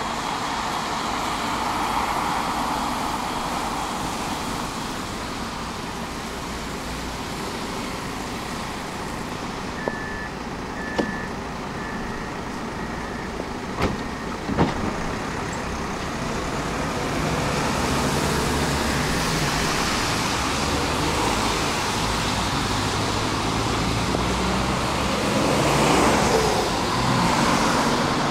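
Tram door warning signal: five short high beeps about a second apart, then two knocks as the doors shut. Steady street traffic noise runs underneath and grows louder in the second half.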